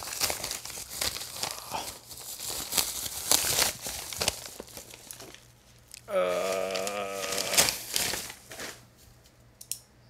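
Packaging crinkling and rustling as it is handled, in dense crackly bursts. About six seconds in comes a brief steady call lasting about a second, followed by more crinkling before it quietens near the end.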